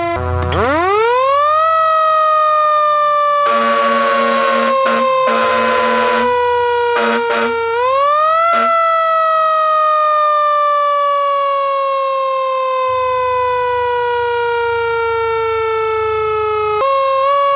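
Siren winding up quickly to a high pitch about half a second in and then falling slowly. It winds up again about eight seconds in, falls slowly again, and near the end drops to a lower steady tone. Air horn blasts sound over it: a run of rapid pulsing blasts from about four to six seconds in, and short blasts around seven seconds and again at the end.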